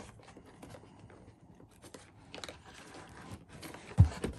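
Plastic zip ties being cut and tugged free from a cardboard backing board: faint snips, clicks and rustles, with a dull thump against the board about four seconds in.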